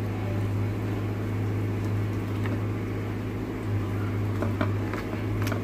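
A steady low hum, with a few faint squishes and clicks as a hand rubs wet masala paste onto a seer fish steak on a steel plate.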